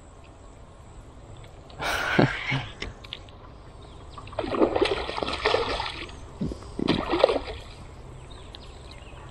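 Hooked zander splashing at the water's surface as it is played in on a float rod: three bouts of splashing, about two seconds in, around five seconds in, and around seven seconds in.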